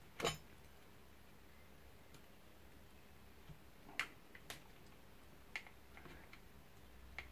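A few separate light clicks and taps of a small hand tool and fingers working a thin wire into a plastic housing, the loudest just after the start and the others about four and five and a half seconds in, with near silence between.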